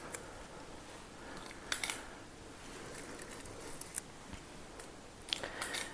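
Metal squeeze-handle cookie scoop clicking and scraping against a stainless steel mixing bowl while scooping thick cookie dough: a few short sharp clicks, with a quick cluster near the end.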